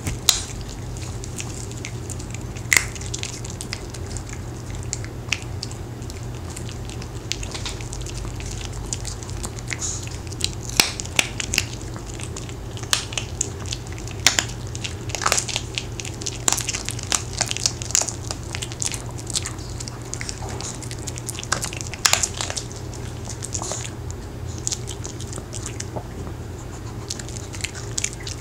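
Maltese dog chewing hard homemade sweet potato dog cookies, with irregular sharp crunches as its teeth break the pieces.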